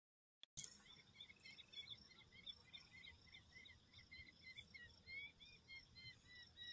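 Faint outdoor night chorus of short, repeated chirps from many calling animals, starting about half a second in after a moment of total silence.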